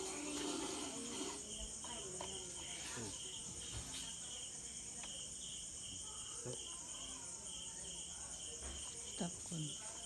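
Crickets and other night insects chirping: a steady high-pitched chorus, with one chirp pulsing evenly about twice a second, and a few faint knocks from handling.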